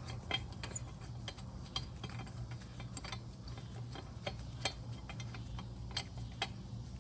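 Light, irregular metallic clicks and taps of hand tools and nuts being worked onto the exhaust mounting studs, a click or two a second, under a steady low hum.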